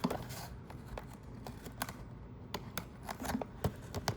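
Cardboard and plastic packaging of a diecast car box being handled and opened: scattered taps, clicks and rustles.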